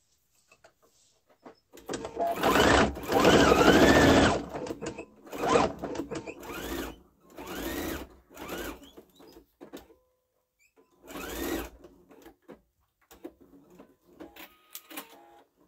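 Husqvarna Viking sewing machine stitching a dart through fabric in runs. One longer run of about two seconds comes first, then several short bursts, with the motor speeding up and slowing down in each.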